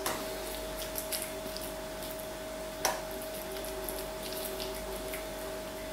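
Salted chunks of raw meat being pressed by hand into a small glass jar: soft squishing with a few light clicks of glass, the sharpest about three seconds in, over a steady faint hum.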